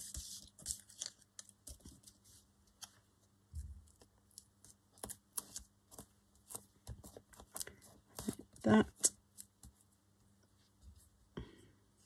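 Paper scraps and ephemera being handled and shuffled on a cutting mat: light, irregular rustles, crinkles and small taps, with one louder burst about three-quarters of the way through.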